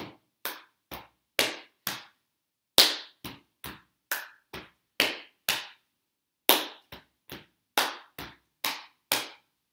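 Body percussion: hand claps and slaps on the chest and thighs in a repeating seven-beat pattern (clap, chest, chest, clap, chest, thigh, thigh). The strikes come about two a second, with a short pause between rounds.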